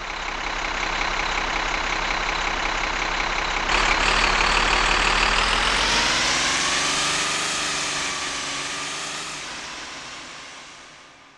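Motorboat engine passing by: it grows louder, brightens suddenly about four seconds in, then drops slowly in pitch and fades away.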